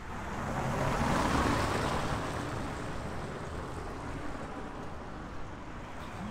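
A vehicle's tyres hissing on a wet road as it passes: a rushing whoosh swells about a second in, then eases into a steady wet hiss.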